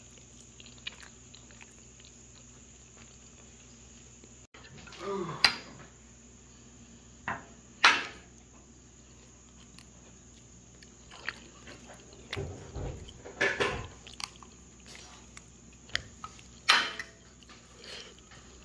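A fork clinking and scraping against a plate: a handful of sharp clinks several seconds apart, with softer handling noise between them.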